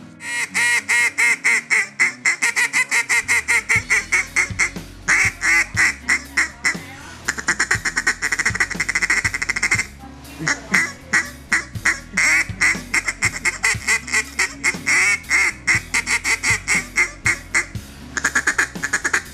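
Xciter Half Pint duck call blown in fast runs of short quacking notes, with a short break about ten seconds in.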